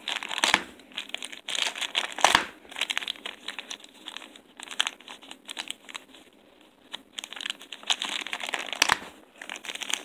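A white mailer envelope being torn open by hand: crinkling and crackling, with a few sharp rips and a short quieter spell about six seconds in.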